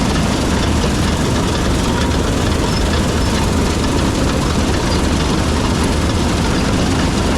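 New Holland CX8.90 combine harvester running steadily while harvesting wheat: a constant heavy engine drone with the whir of the threshing machinery.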